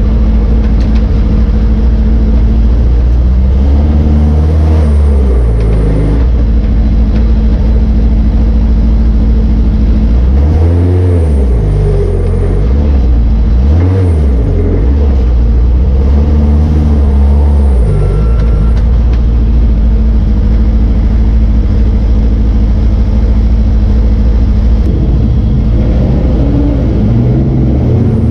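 Race car engine running hard at high revs, heard from inside the car, its note dropping and climbing again several times as the driver lifts and accelerates through the corners.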